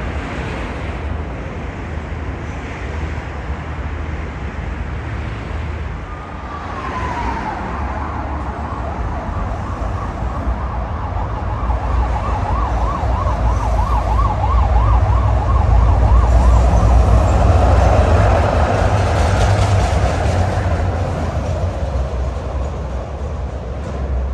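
Emergency vehicle siren over a steady low street-traffic rumble. The siren starts with a falling tone about six seconds in, then goes into a fast up-and-down yelp. The traffic rumble swells louder toward the middle and later part.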